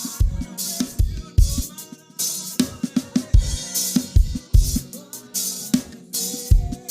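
Live band playing at a sound check: a drum kit with kick drum, snare and cymbals keeping a steady groove over held instrument notes.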